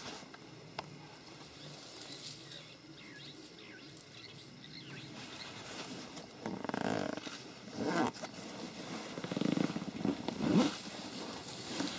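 Leopard feeding on an impala carcass, giving several short, low growls in the second half as it tears at the meat.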